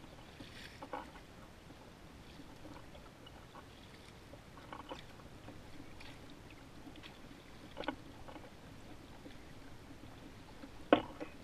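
Scattered light knocks and clatter of a paddle and fishing gear being handled against a plastic kayak hull, with a sharper knock near the end.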